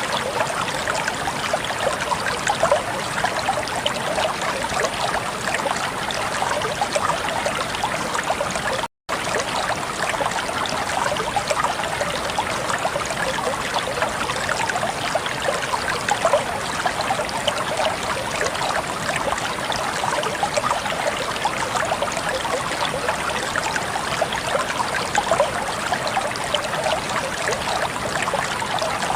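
Water flowing steadily, the continuous trickling and splashing of a stream. It cuts out completely for an instant about nine seconds in.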